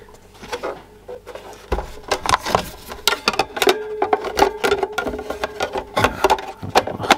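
Irregular plastic clicks, knocks and scrapes as a small plastic portable TV is turned over on a bench and its battery compartment cover is slid and clipped into place.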